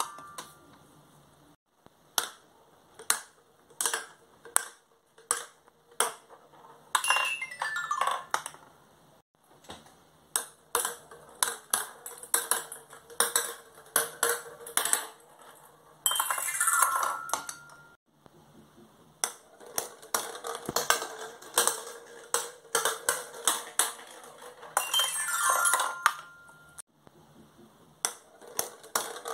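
Plastic balls clicking and rattling as they drop round the trays of a stacked spiral ball-tower toy. Three times, a ball runs down a toy xylophone in a quick falling run of ringing metal notes.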